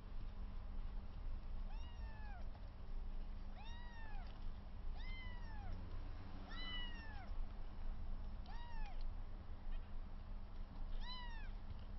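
Three-week-old kittens mewing: about six short high-pitched mews, each rising and falling in pitch, a second or two apart, over a steady low hum.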